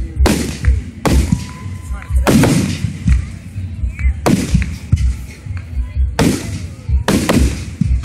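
Aerial firework shells bursting in a rapid volley, a loud boom about once a second, each trailing off in an echoing rumble, with smaller cracks and thumps in between.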